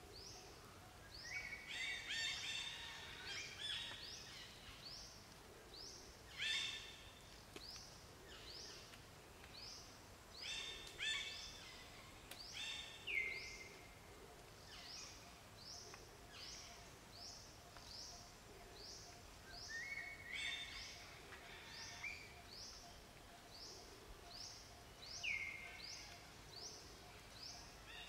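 Birds calling: one repeats a short, high, falling note about every three-quarters of a second, while louder bursts of chirping break in now and then. Faint, steady background hum underneath.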